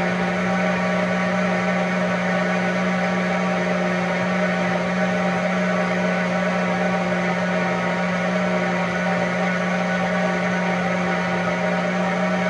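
Countertop blender running steadily at full speed, blending beetroot, carrot and water into juice: a constant motor drone that holds one pitch throughout.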